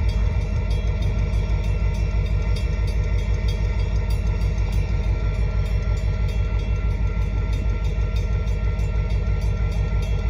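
Union Pacific freight train of hopper cars rolling through a grade crossing: a steady, heavy rumble of wheels on rail with a fine, even run of clicks.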